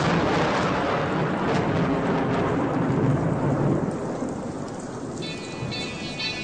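Thunderstorm sound effect: a steady rush of heavy rain with low thunder rumbling. About five seconds in, the record's music comes in over it.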